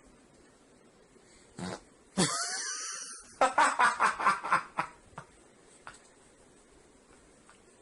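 A fart: a sudden noisy blast about two seconds in, lasting under a second, followed by a quick run of loud bursts of laughter.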